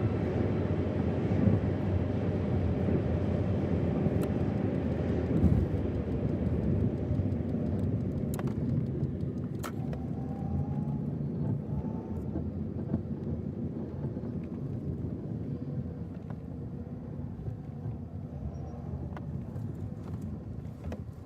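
Car being driven: a steady rumble of engine and road noise, easing slightly toward the end, with a few faint clicks.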